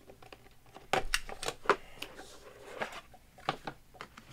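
Hands handling and opening a cardboard collectibles box: a box cutter goes to the seal tape, then there is a string of light clicks and knocks as the box and lid are handled, with a brief scrape about two seconds in.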